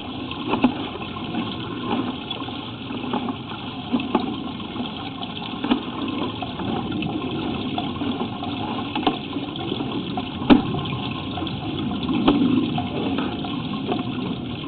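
Water running and gurgling in a sewer drain line, with scattered sharp knocks and clicks, the loudest about ten and a half seconds in.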